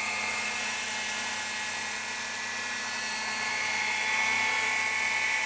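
Small JAKTEC handheld electric round-knife cloth cutter running with a steady high-pitched motor whine as its spinning blade cuts through thin, slippery fabric folded double. It cuts easily, without the fabric shifting or snagging.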